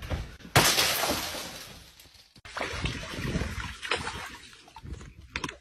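A sudden loud crash that dies away over about a second and a half, then water from a garden hose splashing into a paddling pool as a dog bites at the hose.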